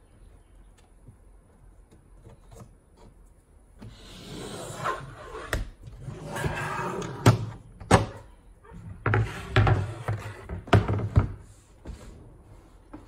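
A particleboard drawer box being handled on a workbench: starting about four seconds in, it scrapes and slides against the bench top, with several sharp knocks and thuds as it is tipped up and set back down.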